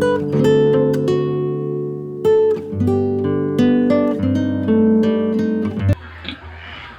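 Plucked guitar music, a melody of ringing notes over a low bass, that cuts off abruptly about six seconds in, leaving a low background hubbub.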